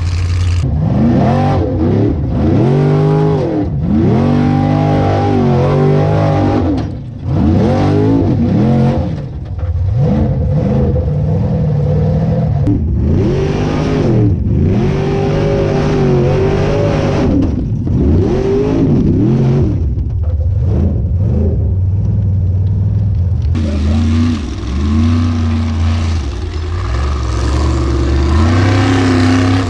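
Formula Offroad buggy's engine revving hard in repeated bursts, its pitch swooping up and falling back every second or two as the car climbs a steep dirt hill.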